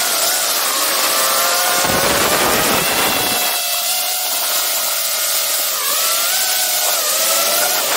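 DJI FPV drone's motors and propellers whining up close, heard from a camera mounted on the drone. The pitch sags and climbs again with throttle changes, most clearly about six seconds in, with wind rushing over the microphone in low gusts around two and three seconds in.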